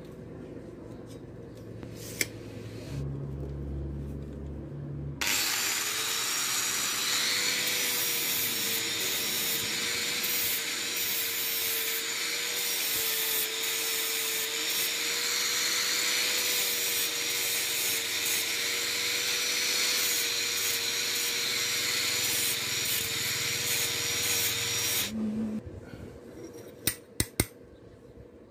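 Electric angle grinder cutting a flat steel strip: the disc runs against the metal with a steady whine and a hiss, starting suddenly about five seconds in and stopping about 25 seconds in. A few sharp metal clinks follow near the end as the cut pieces are handled.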